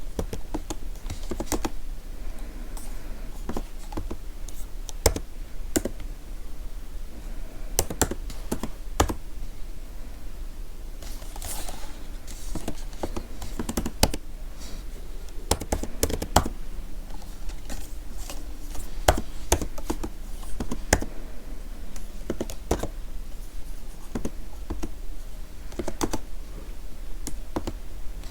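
Typing on a computer keyboard: irregular clicks of keys being struck, with a few louder strokes, close to the microphone for ASMR.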